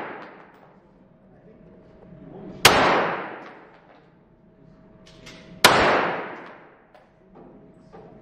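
Two 9 mm shots from a Glock 17 pistol, about three seconds apart. Each shot is a sharp crack followed by more than a second of echo in an indoor shooting range.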